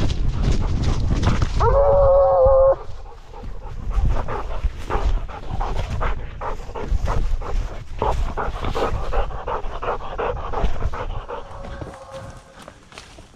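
Blood-trailing dog at a bayed, wounded buck: one held bay about two seconds in, lasting about a second, followed by rapid, close-up panting. A fainter drawn-out call comes near the end.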